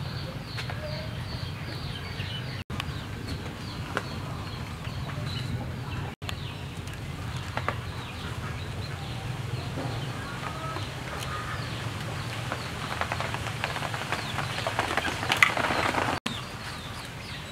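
Small birds chirping in rapid short falling notes, with chickens clucking now and then. About 15 seconds in there is a brief louder rustling burst.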